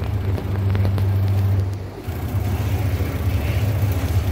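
4060 Faster CO2 laser engraver running a high-speed raster engraving job, its motors sweeping the laser head back and forth: a steady low hum with a rapid rhythmic pulse that dips briefly about two seconds in.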